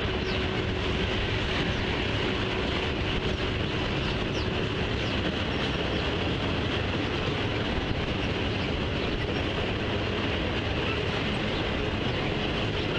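Freight train of autorack cars rolling past, a steady rumble of wheels on rail.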